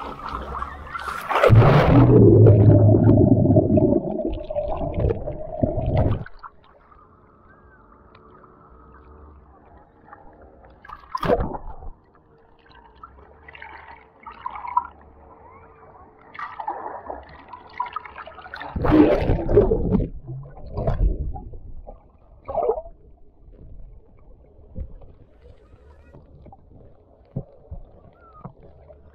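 Water splashing and gurgling close to the microphone, in two loud long spells with shorter splashes between.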